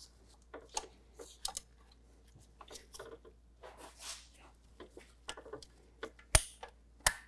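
Scattered light clicks and ticks of a half-inch breaker bar and socket shifting on the tight intake cam phaser bolt of a VW 2.0L engine as it is strained against, with two sharper clicks near the end. The bolt has not yet broken loose.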